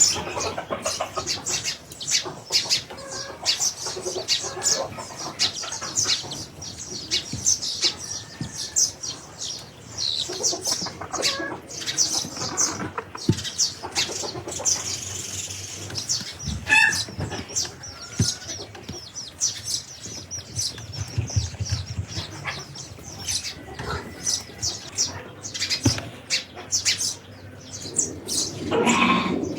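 Many small birds chirping continuously in quick, overlapping high notes. A short run of clearer whistled notes comes about halfway through, and a louder, fuller animal call comes near the end.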